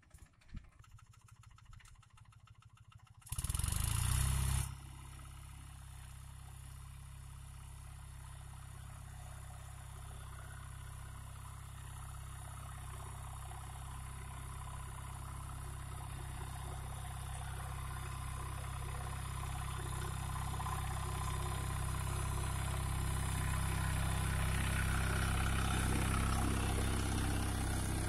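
Captain 250 DI compact tractor's diesel engine running steadily as it pulls a tine cultivator through the soil, growing gradually louder as it approaches. About three seconds in there is a loud burst of noise lasting about a second.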